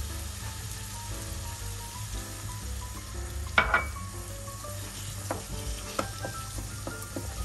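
Minced meat, rice and paprika filling sizzling in a frying pan as it is stirred. A spoon knocks sharply against the pan about three and a half seconds in, and a few lighter clicks follow.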